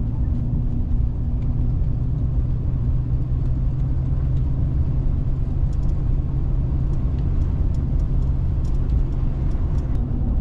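Steady engine and road drone heard from inside a moving vehicle's cabin, with a constant low hum and a few faint ticks.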